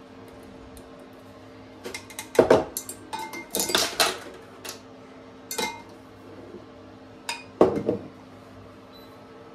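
A glass measuring jug, a drinking glass and a small metal tea strainer being set down and knocked on a kitchen worktop: clusters of clinks and knocks between about two and eight seconds in. A steady low hum runs underneath.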